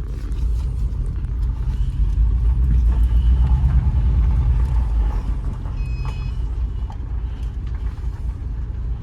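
Jeep engine running as the vehicle is driven, a steady low rumble that swells for a few seconds. The owner says this engine has rod knock.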